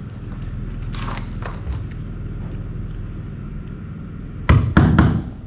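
Hand work on the wooden hull planks: a few light clicks about a second in, then three loud knocks close together near the end, over a steady low hum.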